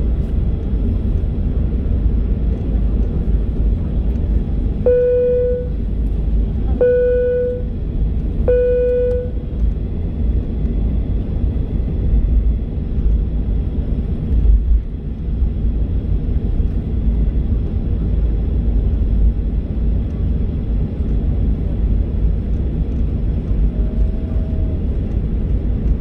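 Steady low rumble inside an airliner cabin as the plane taxis, with engine and rolling noise. About five seconds in, three short identical electronic tones sound roughly two seconds apart.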